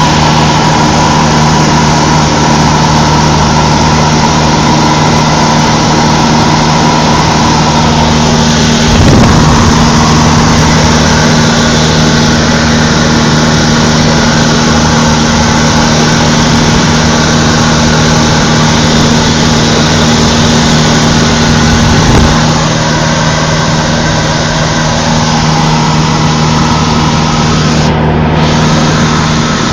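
Cessna 152's four-cylinder piston engine and propeller droning steadily at an even pitch, heard from inside the cabin. Two brief thumps stand out, about nine and about twenty-two seconds in.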